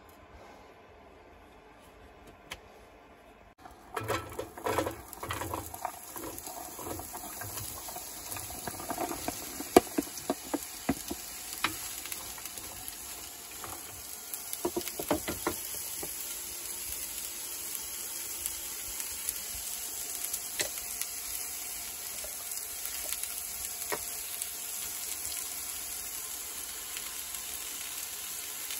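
Chopped vegetables sizzling in hot olive oil in a Ridgemonkey pan, with knocks and scrapes of a spoon moving them about. After a quiet start, the sizzle begins suddenly about four seconds in and goes on steadily, with the spoon knocks thinning out about halfway through.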